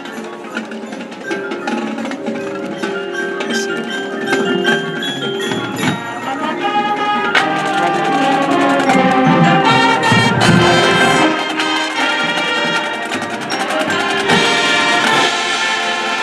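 High school marching band playing, with mallet percussion prominent; the band grows louder from about a third of the way in.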